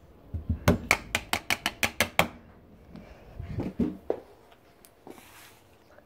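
A quick run of about ten sharp knocks, roughly five a second, followed a second later by a few duller, heavier knocks.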